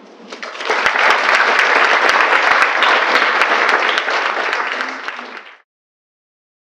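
Audience applauding, many hands clapping. It swells within the first second, holds steady, then cuts off suddenly about five and a half seconds in.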